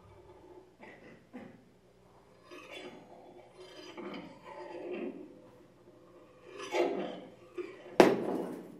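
Objects on a tabletop rubbed, scraped and clinked by hand as an improvised instrument, in short irregular gestures, with one sharp knock near the end that is the loudest sound.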